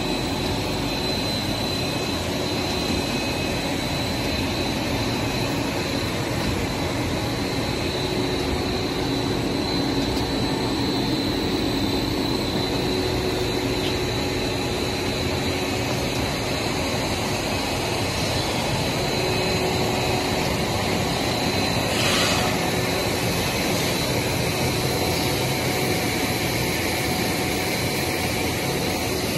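A WPC panel extrusion line with a 65/132 twin-screw extruder running: a steady machine drone with a thin, steady high whine. A short burst of hiss comes about 22 seconds in.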